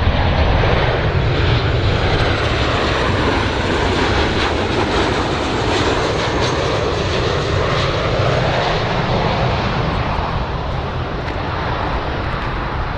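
Jet engines of a twin-engine airliner on final approach, heard from the ground as a steady, loud rushing drone.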